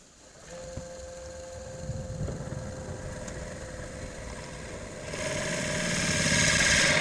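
Wood lathe motor starting up and running with a steady hum. From about five seconds in, a louder hissing cut sets in as a 30 mm bit bores into the end of the spinning ash blank.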